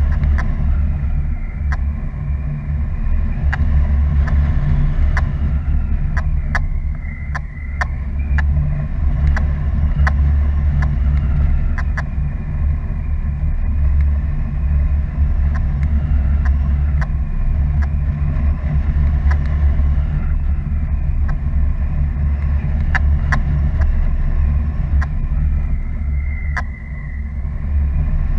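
Wind buffeting the microphone of a paraglider's follow-cam in flight: a loud, steady low rumble, with scattered faint ticks.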